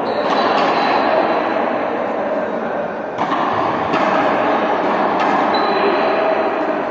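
Echoing sports-hall din of players moving, with a ball striking the floor or wall several times.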